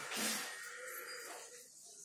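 Scissors cutting through folded paper, loudest at the start and fading after about a second and a half.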